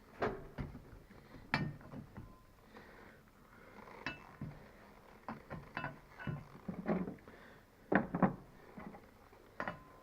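Irregular metal clinks and knocks from hand work on a motorcycle seat's mounting bolts and metal seat base, some with a brief ringing. The loudest knocks come early and as a pair near the end.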